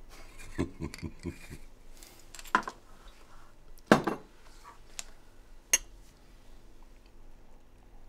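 Scattered clinks and knocks of tableware such as glasses and dishes being handled, with three louder knocks spread over the first six seconds, then quiet handling.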